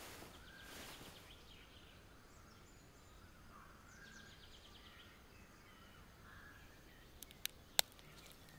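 Faint forest ambience with scattered bird chirps and insect-like trills. Near the end come three quick, sharp clicks, the third the loudest.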